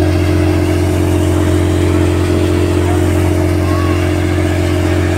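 KSR tractor-driven groundnut thresher running at working speed, a loud steady drone of the tractor engine and the spinning threshing drum and blower.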